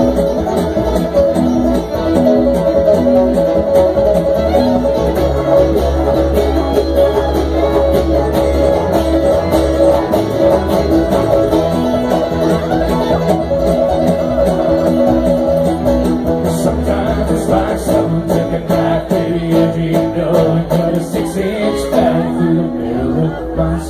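Live bluegrass band playing: banjo and guitar picking over an upright bass, with a trumpet holding long notes.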